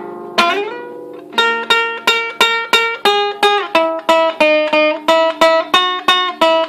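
Viola caipira playing an instrumental break between sung verses: a sliding note about half a second in, then from about a second and a half a steady run of picked notes, often two together, about four a second.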